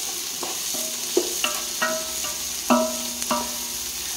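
Onions and green chillies sautéing in a large pot with a steady sizzle while they are stirred. The stirring utensil knocks against the pot several times, and the pot rings briefly after each knock.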